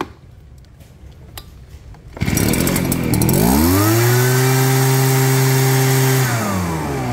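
Kioritz (Echo) 421 backpack mist-blower sprayer's small two-stroke engine starting about two seconds in, revving up to a steady high speed, then slowing as the revs fall away near the end.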